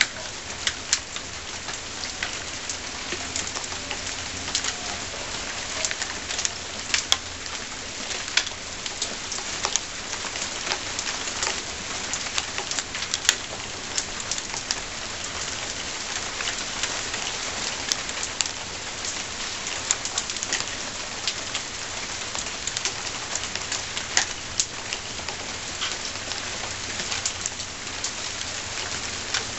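Steady rain with irregular sharp ticks of a few small hailstones striking hard surfaces.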